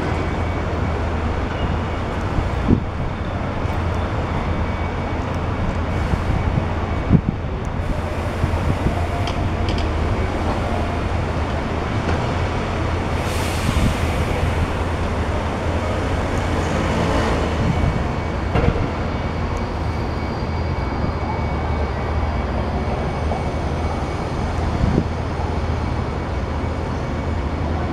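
Long-reach demolition excavator's diesel engine running steadily, with occasional sharp cracks and knocks as its crushing attachment breaks into the roof and masonry of an old house. A longer rushing noise comes about halfway through.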